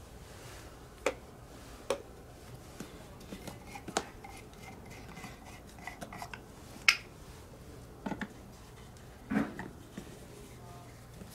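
Sharp hard-plastic clicks and knocks as a self-priming suction filter and the pressure washer's water-inlet coupling are handled and snapped together, about six separate clicks with the loudest about seven seconds in.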